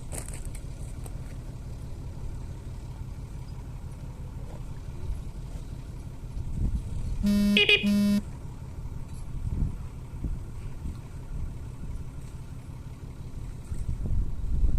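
Vehicle horn giving two short toots about seven seconds in, the loudest sound, over a steady low engine hum.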